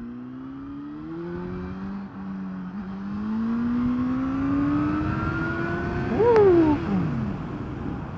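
Motorcycle engine pulling steadily, its note rising for several seconds as it accelerates. About six seconds in, a louder vehicle sound passes, its pitch dropping quickly.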